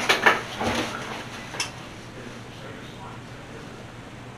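Metal scissors clicking and clinking several times in the first second and a half, then quiet room tone.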